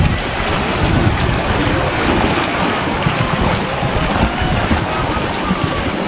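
Turbulent water churning with broken ice slabs at the shore, a steady rushing. Wind buffets the microphone.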